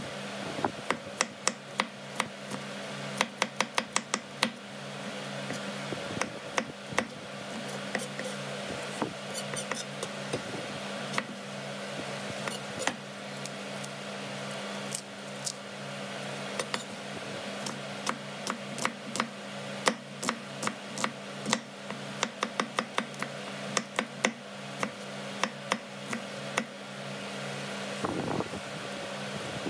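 Kitchen knife slicing a red onion on a wooden cutting board: runs of quick, crisp chops, the blade knocking the board with each cut, with short pauses between runs. A steady low hum lies under it.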